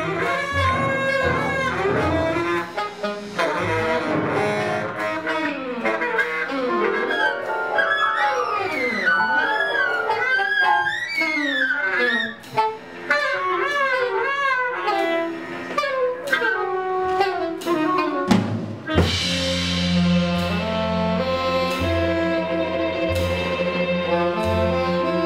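Live improvised ensemble music: a saxophone plays bending, gliding lines over drums and bass. About 19 seconds in, the music changes abruptly to sustained bowed-string chords over a low drone.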